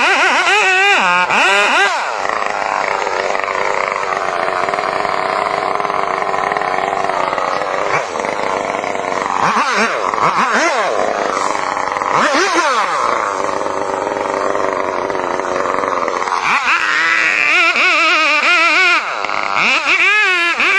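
Chainsaw engine revving up and down in quick swings, then running steadily under load through the middle stretch, and revving in swings again near the end.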